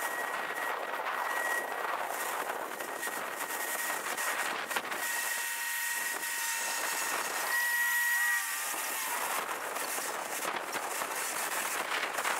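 Steady mechanical hiss with a high whining tone. From about five seconds in several more tones join it; they waver and bend around eight seconds, then fade out.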